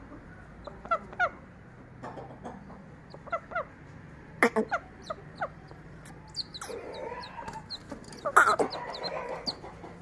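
Domestic chickens clucking and calling in short, scattered notes, with two louder calls about four and eight seconds in. The flock is scared of the bird of prey among them.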